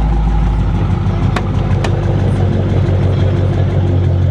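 Chrysler 300C's 5.7 Hemi V8 idling with a steady low exhaust note. Two sharp ticks come about a second and a half in, half a second apart.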